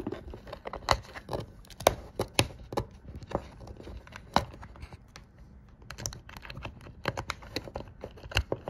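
Irregular clicks, taps and knocks of a plastic Radioddity GA-2S handheld radio being handled and a programming cable's plug being fitted into its side accessory jack.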